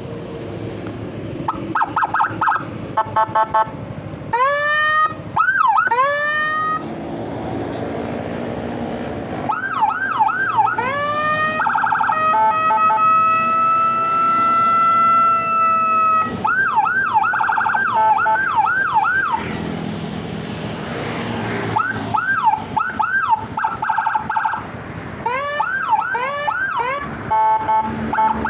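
Custom electronic siren with Whelen tones, cycling through its patterns: fast pulsed beeps, quick rising-and-falling yelps, and a steady held tone in the middle, then back to yelps and beeps.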